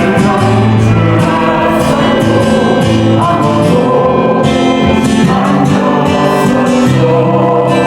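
A classical-style vocal ensemble singing a ballad in harmony, with sustained notes over an instrumental backing.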